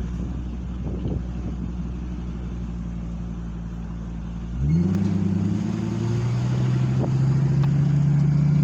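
Car engine running steadily at low revs, then revving up a little under five seconds in as the vehicle accelerates. It holds a louder, higher, slowly climbing engine note to the end.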